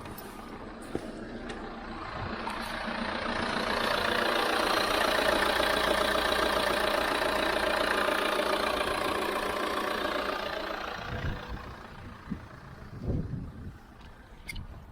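Vauxhall Insignia 2.0 CDTI diesel engine running with a steady low hum, free of the buzzing noise from its wastegate actuator vacuum hose, which has just been replaced. A broad rushing sound swells over the first few seconds and fades away; it and the hum end about eleven seconds in, followed by a few short knocks.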